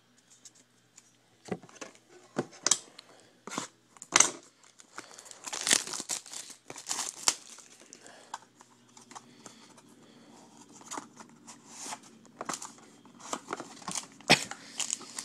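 Foil trading-card pack wrappers being handled: irregular crinkling and tearing, with sharp crackles loudest a few seconds in and again near the end.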